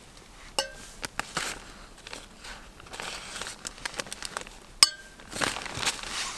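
A plastic food bag crinkling as it is handled and spooned from, with a few sharp clinks of a spoon against a stainless steel camp mug, two of them ringing briefly: one near the start and one just before five seconds in.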